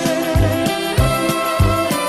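Background music with a steady beat: a bass note pulsing about three times a second under held melody notes.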